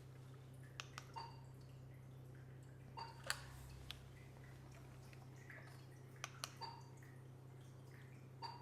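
Near silence: room tone with a steady low hum, a few faint clicks and soft short blips every couple of seconds.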